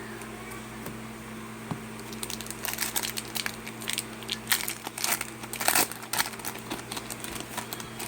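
Thin plastic crinkling and rustling in irregular bursts, starting about two seconds in, as a trading card is slipped into a plastic card sleeve. A steady low hum sits underneath.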